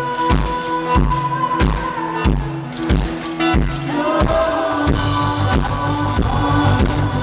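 Live band music amplified over a concert PA, picked up with rough sound on a small camcorder microphone: a steady kick-drum beat about every two-thirds of a second under held notes, with fuller bass notes coming in about four seconds in.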